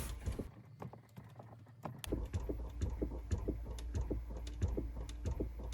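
Recirculation air-door flap behind the glove box of a 2018 Chrysler Pacifica clicking over and over, several clicks a second, with the engine and electrics off. This is the sign of a faulty recirculation actuator motor, which needs replacing. A low hum comes in about two seconds in, and the clicking becomes steady from then on.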